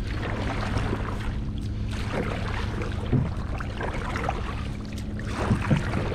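Hand paddle strokes splashing and swishing through the water beside a small plastic boat, over a steady low hum.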